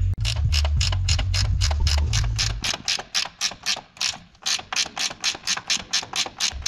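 Hand ratchet wrench clicking steadily, about five clicks a second, with a brief pause about four seconds in, as a bolt is turned during suspension and brake teardown.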